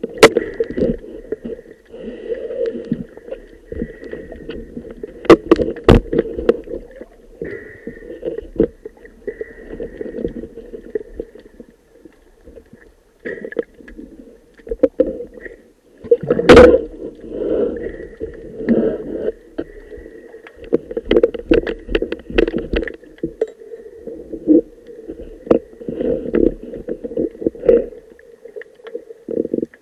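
Muffled underwater noise picked up through a dive camera's housing: the diver's breathing bubbles come and go in irregular spells, broken by sharp knocks of gear against the camera, the loudest about halfway through.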